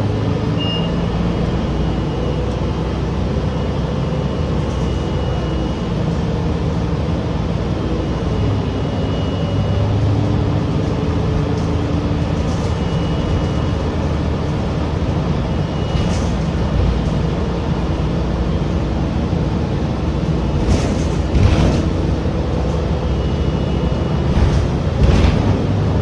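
SORTA Metro transit bus #2001 under way, its engine and drivetrain giving a steady drone, with a few sharp knocks near the end.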